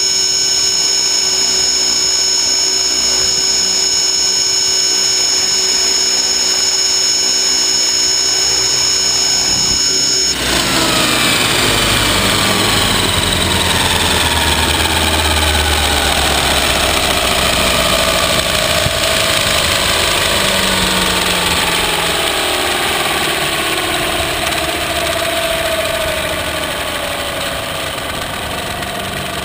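Electric RC helicopter (Align T-Rex 600 ESP) running with a steady high whine. About ten seconds in the sound changes abruptly as it comes down in the grass. The motor and rotor then wind down, their pitch falling slowly.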